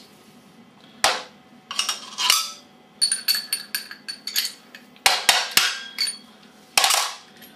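Sharp metallic clinks and knocks of steel and brass tooling in a hand arbor press as an automatic-transmission solenoid canister is pressed and rolled closed and the parts are handled. It is an irregular string of a dozen or so hits, some ringing briefly.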